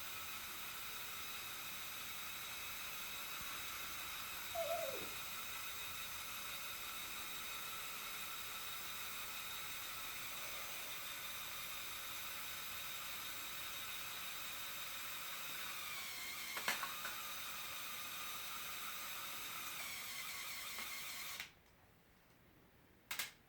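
Small electric Lego motor running steadily with a thin whine driving the motorized helicopter's mechanisms, cutting off about two seconds before the end. A short falling squeak comes about four seconds in, and a brief click comes a little past the middle.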